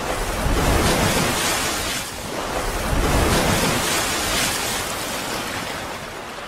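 Sound effect of rushing, splashing water in an animated logo intro: a steady wash of noise that swells twice and eases off near the end.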